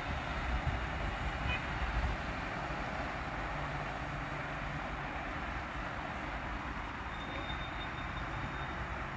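Steady outdoor rumble and hiss with no distinct events, with a faint thin high whistle briefly near the end.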